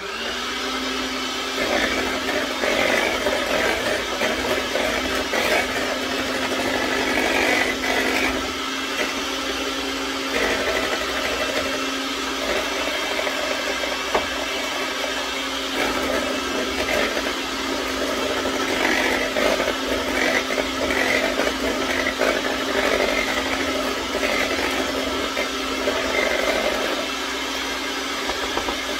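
Electric kitchen mixer running at a steady speed, beating a butter-and-egg mixture in a bowl: a constant motor hum under a dense whirring that swells and eases slightly.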